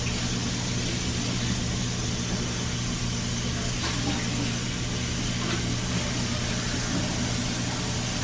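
Steady low hum with an even hiss over it, unchanging throughout, with a few faint knocks.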